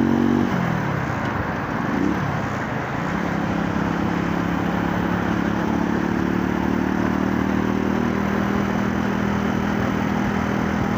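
Small motorcycle engine under way with wind rushing over the microphone: the revs drop about half a second in, rise briefly near two seconds, then hold steady.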